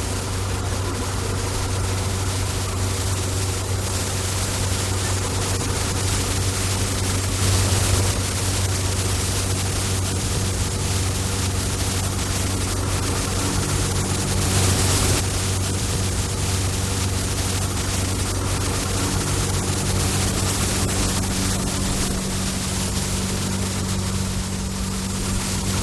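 Municipal cleaning truck running steadily: a constant engine hum under a rushing noise, which swells briefly about eight and fifteen seconds in.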